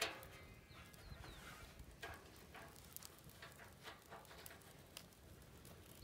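Faint scattered metal clicks and taps from fitting iron rod legs and wing screws to a steel washing-machine drum, with a sharper tap right at the start.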